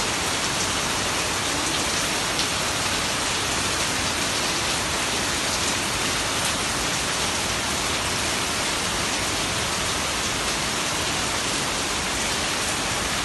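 Heavy tropical downpour: a steady, even hiss of rain, with scattered individual drops ticking close by.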